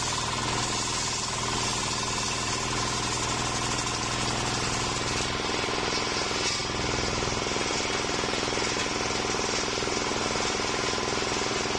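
Homemade circular sawmill, its stationary engine running steadily while the big circular blade rips lengthwise through a green waru (sea hibiscus) log, with a steady hiss of the cut over the engine.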